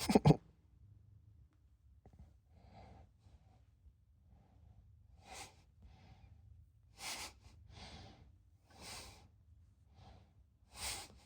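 Two or three sharp knocks at the start, then a series of soft breaths or sighs close to the microphone, roughly one a second.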